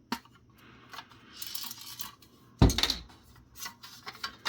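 Small metal parts and hand tools clinking and clattering, with a short scrape about a second and a half in and one louder knock a second later, as a circuit board and its aluminum standoffs are worked loose from a metal housing.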